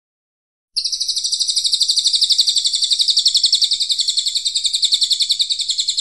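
A cililin coklat songbird singing one long, rapid trill of high notes, about eleven a second, starting about a second in and going on for about five seconds at a steady, slightly falling pitch before stopping abruptly.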